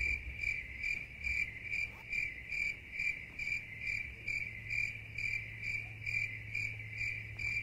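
Crickets-chirping sound effect: a steady, even chirp a little more than twice a second over a low hum.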